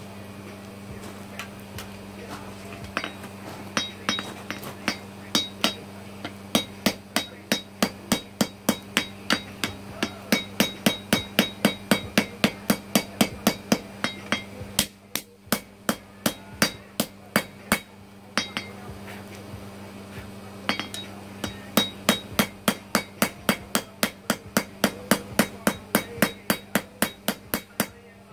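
Ball-peen hammer striking hot knife steel on an anvil, about three blows a second in long runs with brief pauses, each blow ringing, as the handle radius is forged. A steady hum from the forge's air blower runs underneath.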